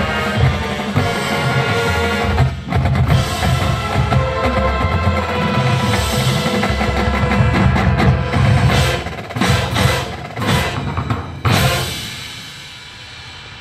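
Marching band playing its show music, drums and percussion prominent under sustained wind notes. Near the end the music stops on a final hit and dies away.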